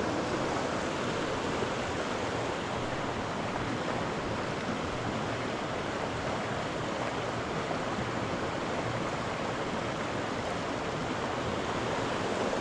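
Steady rushing noise of a waterfall's water pouring down into its pool.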